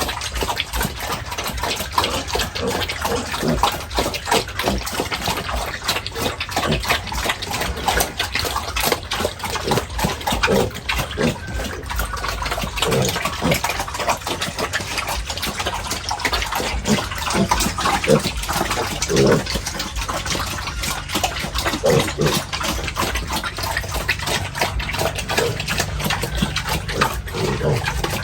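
Water gushing and splashing steadily, with short grunts from pigs now and then.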